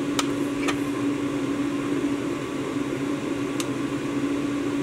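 Steady hum from a running appliance such as a microwave oven or fan, with a few faint ticks as a metal measuring spoon scoops glitter from a plastic jar.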